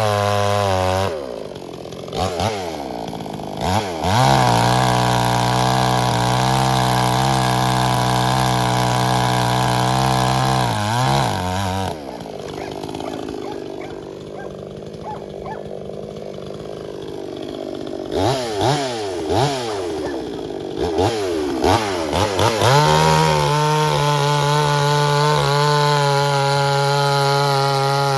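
Pinkway 63cc two-stroke gas chainsaw running, blipped in several short revs and held at steady high throttle through two long stretches, dropping to a lower idle for several seconds about halfway through.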